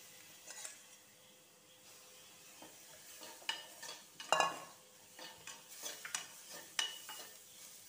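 A spoon stirring and scraping wet masala in a stainless-steel pan over a light sizzle, with a few sharp metal scrapes and clicks in the second half, the loudest about four seconds in.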